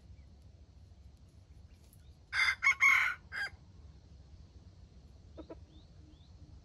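A junglefowl rooster crows once, a short, clipped crow of a little over a second, about two seconds in. Later comes a faint, short cluck.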